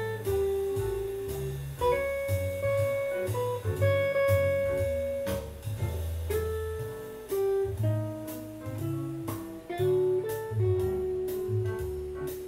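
Electric guitar, a PRS, playing a jazz-style single-note melody line with held notes, over a backing bass line.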